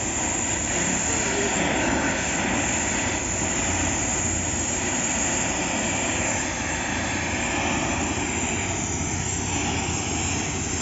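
Gas welding torch flame running with a steady hiss while welding a borewell drilling machine adapter.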